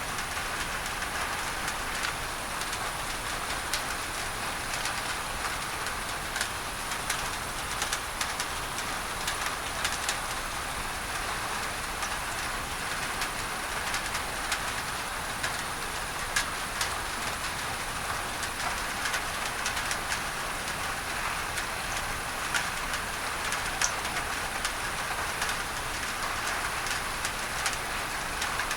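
Steady rain on a tin roof, with many small sharp drop ticks over an even hiss of masking noise.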